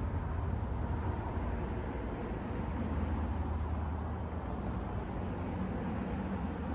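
Steady low outdoor background rumble, with no distinct events standing out.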